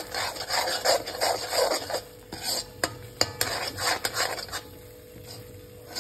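Metal spatula scraping and stirring thick masala paste around a steel kadhai, in quick repeated strokes with sharp clinks of metal on metal. The stirring eases off near the end.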